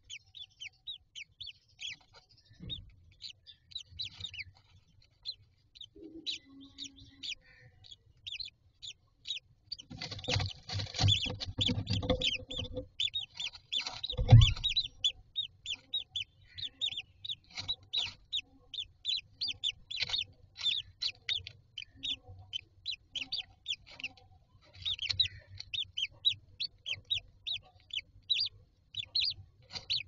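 Newly hatched common myna chicks peeping in a wooden nest box: a rapid, continuous run of short high chirps, several a second. Around the middle comes scratching and rustling in the straw of the nest as an adult shifts about, then a single knock against the box.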